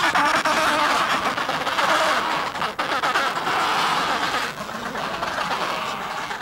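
Dense din of an Adélie penguin colony: many birds calling at once, their calls overlapping into a steady clamour that eases a little about two-thirds of the way through.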